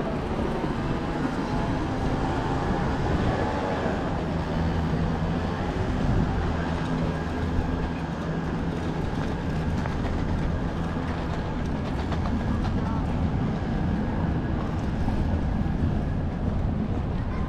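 A steady low vehicle rumble running throughout, with passers-by talking in the background.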